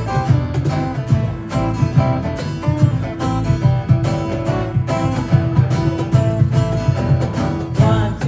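Instrumental passage of a live acoustic band: a steel-string acoustic guitar plays a picked lead melody over strummed guitar, with a cajon keeping a steady beat.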